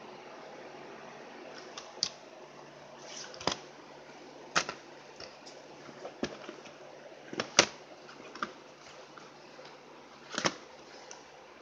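CD cases and a paper booklet being handled: about seven separate sharp clicks and knocks as the packaging is flipped, closed and set down, the loudest about seven and a half seconds in. Under them is a steady faint hiss and low hum.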